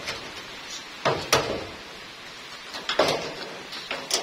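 Steady hiss of light rain, broken by several sharp knocks: two close together about a second in, one around three seconds and one near the end.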